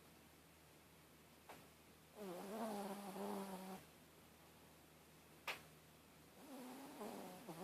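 A sleeping pet snoring: two long, pitched snores about four seconds apart, with a sharp click between them.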